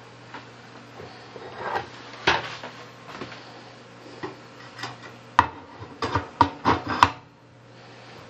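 A run of sharp clicks and knocks from hard objects being handled, sparse at first and then quicker and louder near the end, over a low steady hum.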